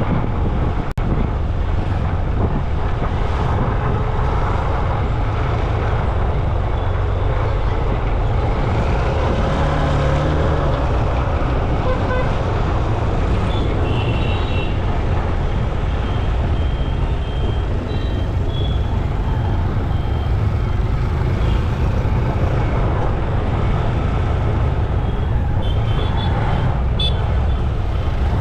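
Steady rush of wind buffeting an action camera's microphone, with road and traffic noise from riding among vehicles. A few short high beeps come about halfway through and again near the end.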